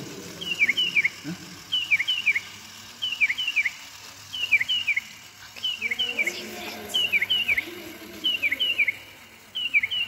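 Bird-like chirping: groups of four quick, falling chirps, repeating evenly about every 1.3 seconds.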